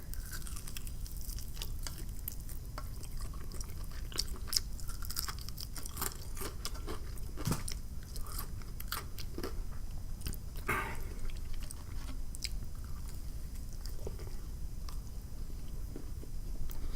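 A person chewing fried chicken wing close to the microphone: soft, wet mouth clicks and smacks with a few brief crunches of the fried breading.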